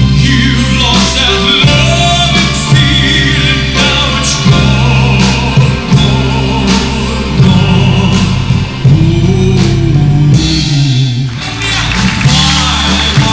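Male vocalist singing into a microphone over band accompaniment with a steady beat.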